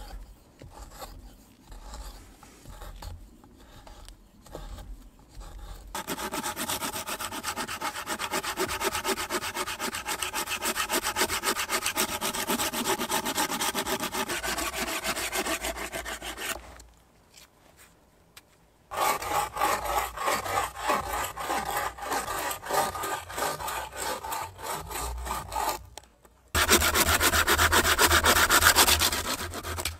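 First, a few faint scraping strokes of a carving tool hollowing out a green-wood kuksa blank. Then a handsaw cuts green wood in fast, steady back-and-forth strokes; it stops for about two seconds just past the middle and resumes, loudest near the end.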